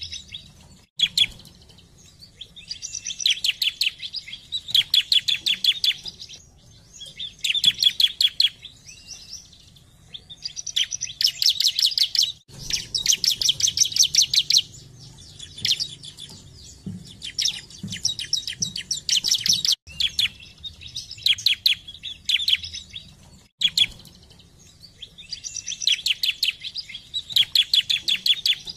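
Bar-winged prinia (ciblek) singing: phrases of rapid, evenly repeated sharp chipping notes, each phrase a second or two long, with short breaks between.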